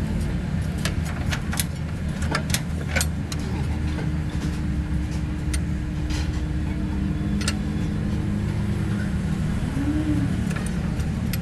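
An engine running steadily, with sharp metallic clinks and taps, several close together in the first three seconds and a few more later.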